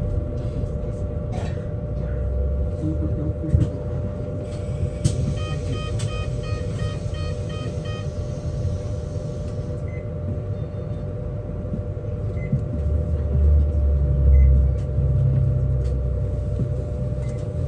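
BYD K8 2.0 battery-electric city bus riding along, heard from inside: low road rumble under a steady hum. About five seconds in, a run of about seven quick electronic beeps sounds, and the rumble swells near the end.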